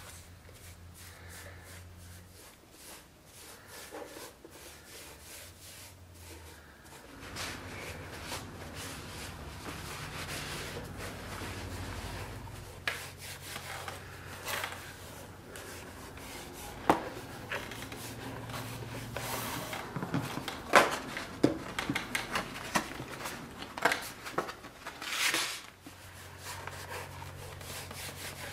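Leather being rubbed and handled by hand, with a scattering of sharp clicks and knocks in the second half. A low hum sits under the first few seconds and returns near the end.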